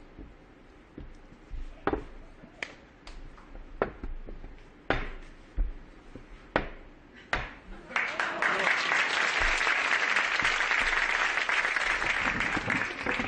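A series of sharp, separate knocks and taps of the magician's balls and cups on the tabletop, about eight in all. Then an audience applauds, starting suddenly about eight seconds in.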